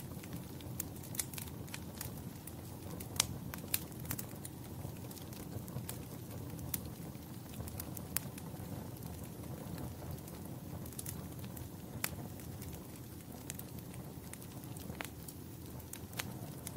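Fire crackling in a fireplace: irregular sharp pops and snaps over a steady low rumble of the flames.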